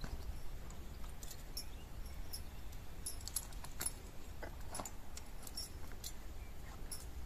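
Light, scattered clinks and jingles of a horse bridle's metal bit and buckles being handled.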